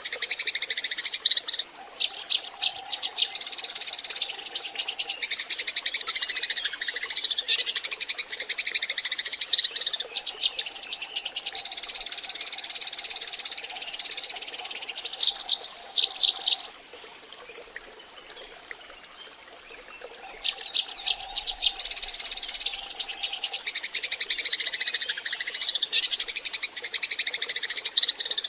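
A flock of Eurasian tree sparrows chattering, with dense, rapid overlapping chirps. The chatter breaks off for about four seconds a little past the middle, then starts again.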